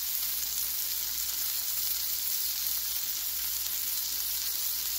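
Pork butt steaks and thick-cut yellow squash in melted butter sizzling steadily on a hot Blackstone flat-top griddle, an even hiss that does not let up.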